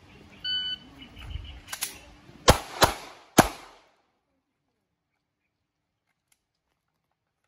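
A shot timer's short start beep, then, a couple of seconds later, three sharp shots in quick succession from a Glock 19 9mm pistol. A fainter crack comes just before the three shots.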